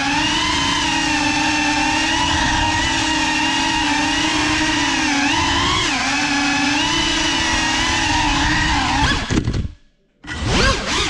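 GEPRC Cinelog 35 cinewhoop drone's brushless motors and ducted propellers whining as it flies, the pitch steady with small rises and dips as the throttle changes. Near the end the sound cuts out for about half a second, then comes back in quick surges up and down in pitch.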